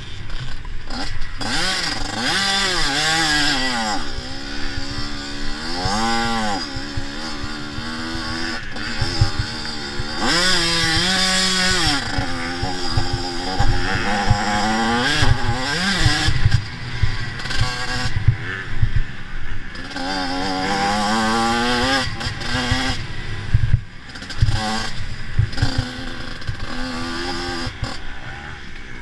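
Several 85cc-class motocross bikes racing, their engine notes climbing and dropping back again and again as the riders open the throttle and shift gears.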